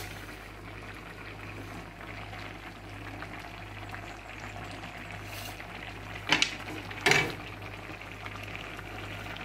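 Bitter gourd curry bubbling at the boil in an aluminium pot on an induction cooker, over a steady low hum, as its broth is cooked down. A little past halfway come two brief clatters about a second apart.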